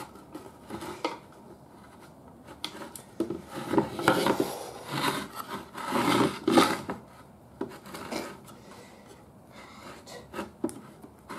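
Bungee cord being stretched and worked around a wooden radio cabinet as a clamp for a glued joint, the cord and hands rubbing and scraping on the wood in irregular strokes with a few light knocks, loudest around the middle.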